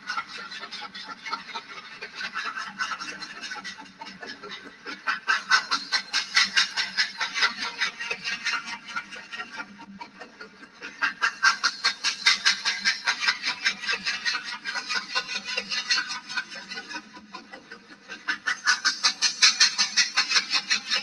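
Rhythmic train chugging sound, about five or six hissing beats a second, swelling loud and easing off three times.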